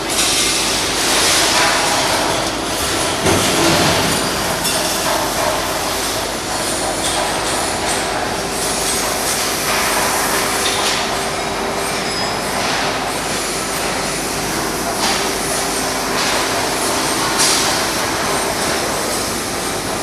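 Continuous factory-floor machinery noise with a steady hum, broken by a few brief louder bursts.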